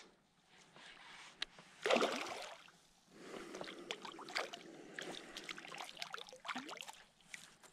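A hooked bass splashing and thrashing at the water's surface beside the boat as it is reeled in, with one louder splash about two seconds in, then a run of smaller irregular splashes.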